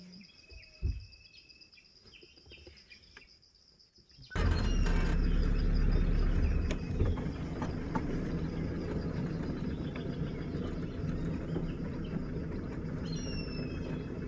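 Insects buzz steadily and birds chirp and whistle. About four seconds in, a safari jeep's engine comes in suddenly and loud, then runs on steadily as the vehicle drives along a dirt forest track.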